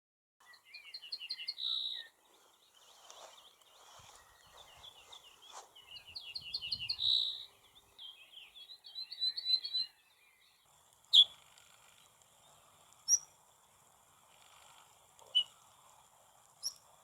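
Wild songbird singing three short phrases of rapidly repeated high notes, each ending in a louder, buzzier note. Then a bird gives single sharp calls, four in all, about two seconds apart.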